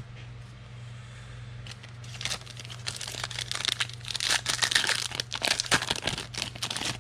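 Plastic trading-card pack wrapper being torn and crinkled: a dense crackling that starts about two seconds in and is busiest in the middle, over a steady low hum.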